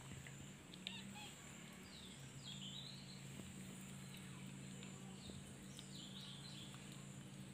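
Quiet background: small birds chirping faintly a few times in two short clusters, over a steady low hum and a faint high whine.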